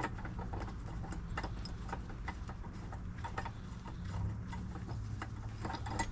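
Irregular light clicks and knocks as parts of a manual tire changer are handled and fitted together, a few a second, over a steady low hum.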